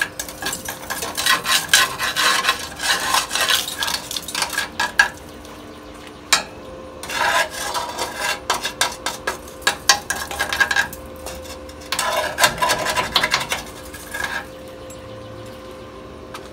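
Gritty scraping and rattling of sand and rust debris against the metal of a rusted-out frame section. It comes in several bursts of a few seconds each, with short pauses between them.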